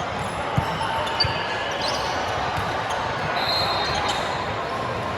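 Play in a gym during a volleyball match: two sharp thuds of ball contacts about half a second and a second in, and a few short high squeaks, over a steady murmur of spectators in a large hall.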